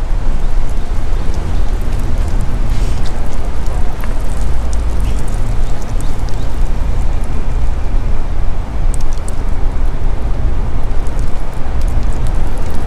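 Steady, low rumbling wind and road noise from a car driving slowly, with scattered light crackles.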